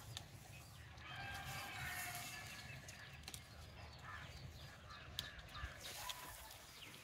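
A rooster crowing faintly in the background: one long call that starts about a second in and lasts some two seconds. A few light clicks follow later.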